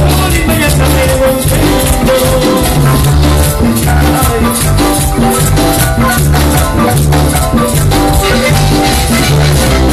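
Loud, continuous dance music with a heavy bass line and busy, quick percussion.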